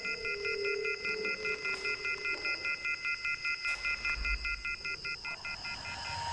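Rapid electronic beeping, about five short beeps a second, over a steady high-pitched tone. The beeping stops just before the end.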